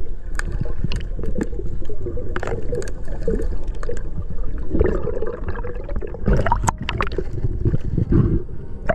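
Water gurgling and bubbling around a camera held underwater, as a diver fins through weeds, with scattered sharp clicks and knocks.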